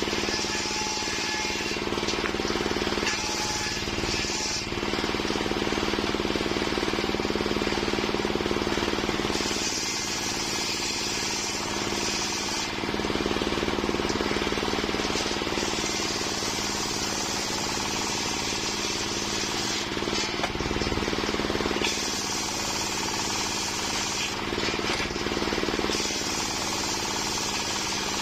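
Home-built circular sawmill running steadily, its blade cutting through waru wood in stretches: a higher hiss comes in while the blade is in the log and drops away between passes, over a constant low hum.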